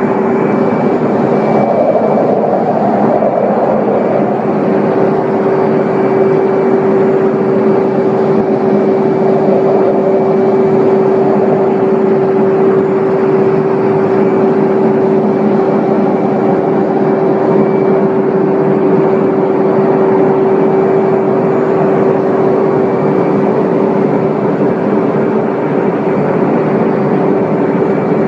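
Airplane in flight, a steady loud drone with a constant hum that holds one pitch and does not rise or fall.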